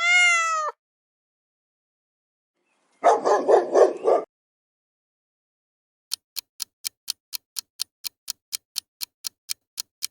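The tail of a cat's meow, then a dog barking several times in quick succession for about a second. After that comes a clock-like ticking, about four ticks a second.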